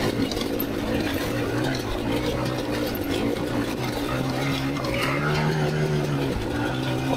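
Kamax KMX 250 two-stroke dirt bike engine running steadily under way, its pitch rising and then falling back a little after five seconds in as the throttle opens and closes.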